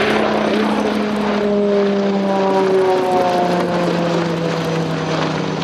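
Eurocopter X³ compound helicopter flying past overhead: a loud drone from its five-bladed main rotor, the two wing-mounted five-bladed propellers and its twin turboshaft engines. The steady tones in the drone drop in pitch about halfway through as it passes and moves away.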